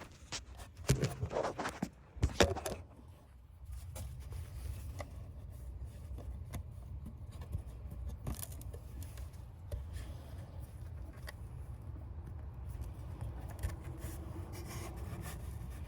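Small metal parts clicking and scraping as a washer and cotter pin are fitted by hand onto the pin of a hood latch cable, loudest in the first few seconds. Then a steady low rumble with scattered light ticks.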